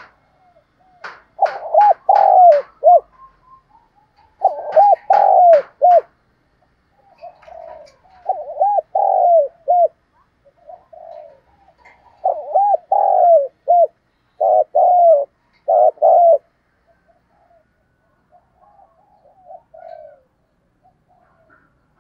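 Spotted dove cooing: five loud phrases, each a run of several short, curved coos, over the first sixteen seconds or so, then only faint scattered notes.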